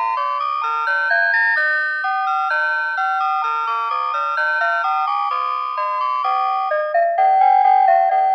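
Citizen Moulin alarm clock playing one of its built-in electronic alarm melodies: a chiming tune of clean synthesized tones, two or three notes at once, stepping up and down at a steady tempo.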